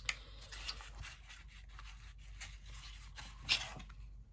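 Light scrapes and rustles of cardboard as a small kraft-paper box is opened and a teal reusable cotton swab case is slid out of it, with a louder scrape about three and a half seconds in.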